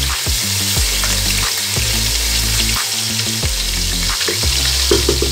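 Ground paste sizzling and bubbling in hot oil in a frying pan, being lightly browned and stirred with a wooden spoon.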